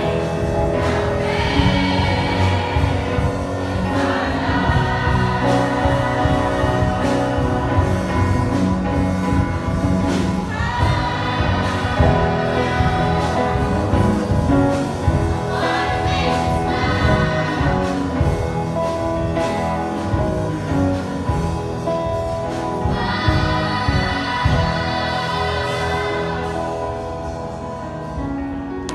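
A choir singing a gospel song with instrumental accompaniment.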